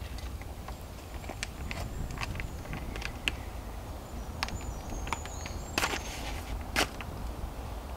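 Scattered light ticks and taps in wet woodland leaf litter, with two louder knocks near the end and faint high bird chirps shortly before them.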